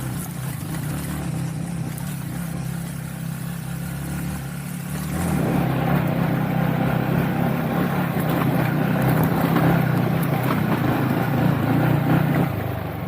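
A vehicle engine running steadily on the move, getting louder about five seconds in.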